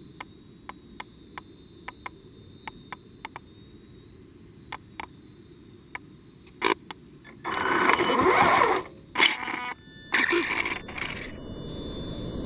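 Radio-controlled truggy heard from its onboard camera. It first sits still, with only faint irregular clicks and a faint steady high whine. About seven seconds in it drives off, and the loud noise of its drivetrain and tyres on leaf litter and gravel comes in spells, with a brief drop in the middle.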